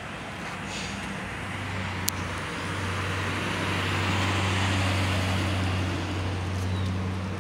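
A small yellow school bus driving past: its engine hum and tyre noise grow as it approaches, are loudest about four to five seconds in, then fade as it moves away. A single sharp click about two seconds in.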